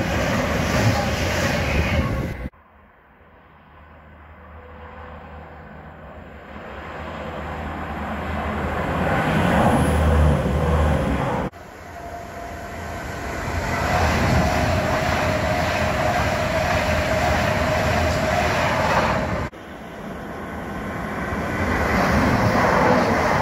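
Passenger trains running past on the line below, in three clips that cut off abruptly. A train runs close beneath at the start. An Avanti West Coast Class 390 Pendolino electric train then approaches and passes at speed, getting louder, with a steady whine. Near the end a Northern Class 195 diesel multiple unit approaches and grows loud as it passes.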